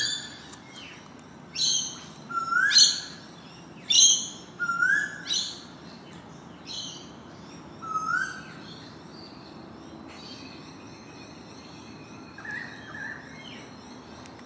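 Birds calling: a string of short, sharp rising calls, about seven in the first eight seconds, then a couple of fainter ones near the end, over faint steady background noise.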